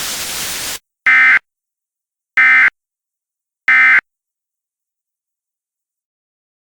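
Emergency Alert System end-of-message data tones: three short, identical bursts of screechy digital modem-like chirping, about 1.3 s apart. They close the alert, after a steady hiss cuts off suddenly under a second in.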